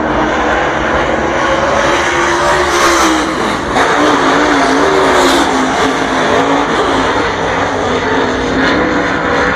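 Dirt late model race car's V8 engine running at speed on a dirt oval during a qualifying lap. The engine note rises and falls as the car powers through the turns.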